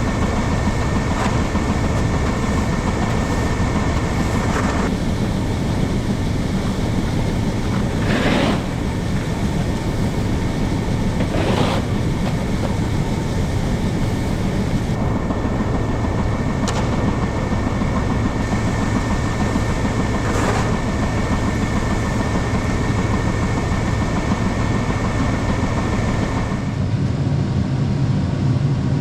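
A vehicle running steadily, engine and road noise, with a constant high whine; the sound changes abruptly a few times.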